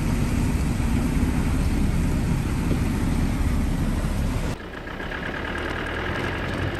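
A vehicle's engine and road noise make a heavy low rumble that cuts off abruptly about four and a half seconds in, giving way to a quieter running sound.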